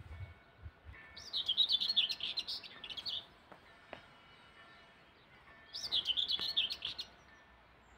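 A songbird singing two phrases of quick, warbling chirps, each lasting about one and a half to two seconds, a few seconds apart.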